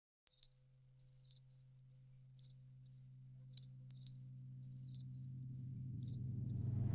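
Intro of a minimal techno track: sparse, irregular high chirps like insects, two or three a second, over a low steady bass drone that slowly grows louder. Near the end a swell of noise rises in.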